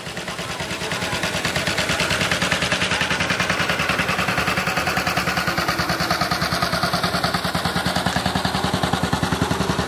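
1958 Vespa scooter's single-cylinder two-stroke engine puttering at low revs as it is ridden slowly, a fast, even beat that grows louder over the first couple of seconds and then holds steady.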